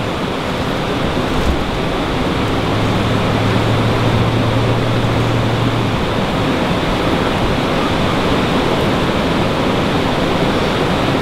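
Loud, steady rush of a river's current. A low steady hum sounds under it for a few seconds near the middle.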